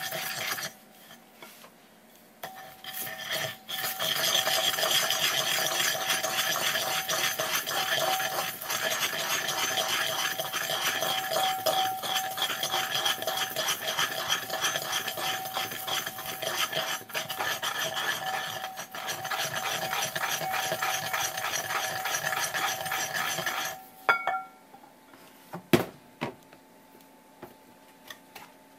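Wooden pestle grinding fresh sansho leaves (kinome) against the ridged inside of a ceramic suribachi mortar: a steady scraping rasp that starts about two seconds in and stops about five seconds before the end, followed by a few light knocks.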